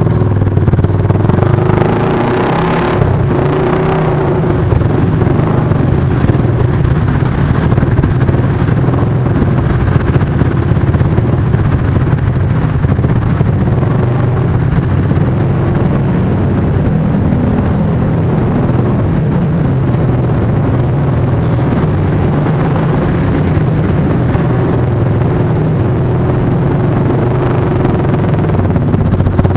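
Motorcycle and car engines running in slow, dense traffic, mostly heard inside a road tunnel.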